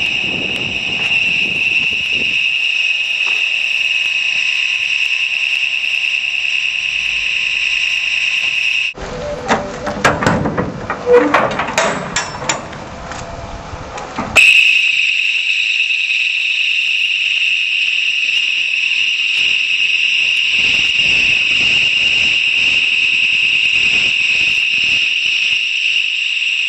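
Inferno sound-barrier security alarm sounding a loud, steady, piercing high-pitched tone. It breaks off about nine seconds in for a few seconds of mixed knocking and noise. It then starts again suddenly, set off by the PIR motion detector as someone enters the container, and keeps sounding.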